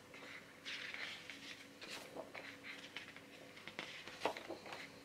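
Large glossy booklet pages being turned by hand: rustling and sliding of heavy paper, with a sharp tap about four seconds in.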